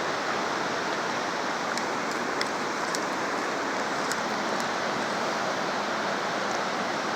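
Mountain creek rushing steadily past, an even, unbroken water noise.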